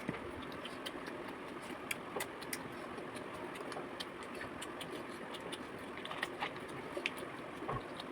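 Eating sounds during a spicy food-eating challenge: scattered small clicks and crunches of chewing and handling food over a steady background hiss.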